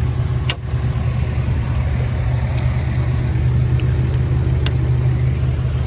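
Diesel engine idling steadily, with a single sharp click about half a second in.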